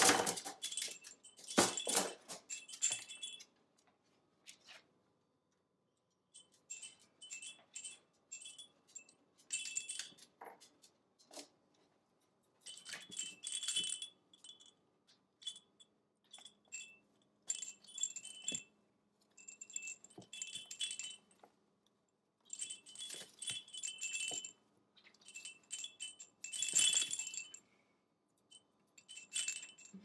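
The bell inside a soft fabric cow rattle jingles in short bouts every few seconds as an African grey parrot pecks and tugs at it. There are a couple of knocks in the first two seconds.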